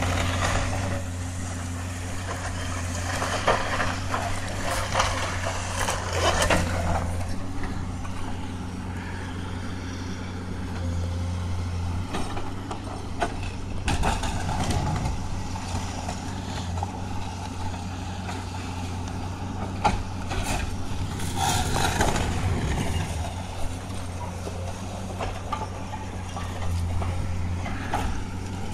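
Tracked excavator's diesel engine running steadily as its bucket breaks up a concrete building, with loud crunching and crashing of concrete and debris several times over the engine.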